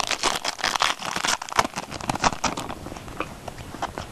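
Trading cards being handled and flipped through by hand: a quick run of small clicks and rustles that thins out about two and a half seconds in.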